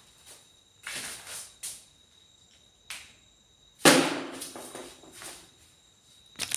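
Scattered scuffs and knocks as a person moves about the room. The loudest is a sharp knock about four seconds in that rings on for about a second, with clicks near the end.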